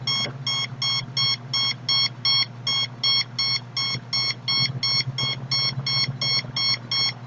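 Handheld RF meter's audible alarm beeping steadily at about three short, high-pitched beeps a second, signalling a high radiation reading. A steady low hum runs underneath.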